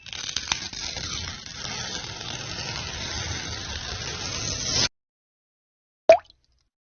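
A watery sound effect that runs for about five seconds, getting slightly louder before it cuts off suddenly. About a second later comes one short blip.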